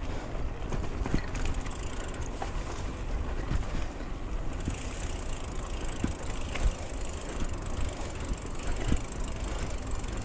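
Mountain bike ridden over a dirt singletrack: a steady low rumble of tyres and air on the microphone, with frequent short rattles and knocks from the bike over bumps.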